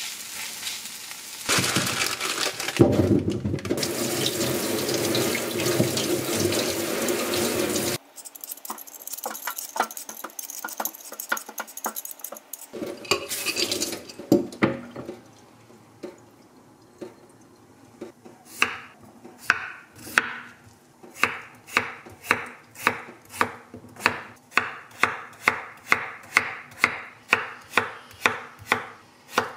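Tap water running into a stainless-steel sink with dishes clattering, then a potato rinsed under the tap. After a short quiet stretch, a knife chops potatoes on a wooden cutting board, steady even chops about two a second.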